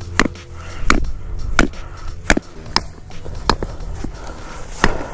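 A rock pounding a tent stake into hard ground: sharp, evenly paced knocks, about eight strikes at roughly one every three-quarters of a second. Wind rumbles on the microphone underneath.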